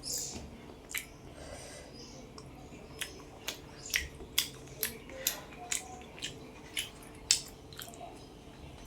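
Close-up chewing of a mouthful of food with wet smacking of the lips and mouth: a run of about a dozen sharp clicks, some two a second, starting about three seconds in.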